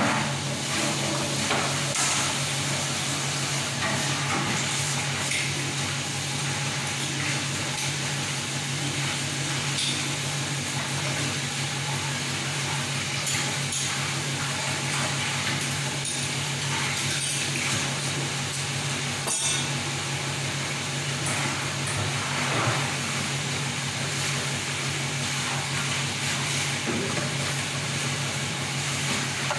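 Steady low machine hum with fan-like noise, over occasional light clinks and scrapes of a spoon on a tray as filling is spread on flatbread and the wraps are rolled.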